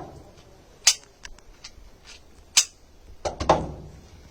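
Shots from a GSG M1911 .22LR pistol: sharp, light cracks, two of them about a second and a half apart, then a fuller burst near the end.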